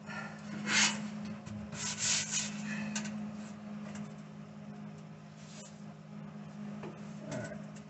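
Rustling and scraping as a gloved welder shifts across a sheet-metal truck floor pan and handles his welding gear, a few short scrapes in the first few seconds, over a steady low hum.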